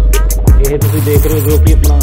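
Background hip-hop music with a heavy kick drum about twice a second, deep bass notes and a vocal line.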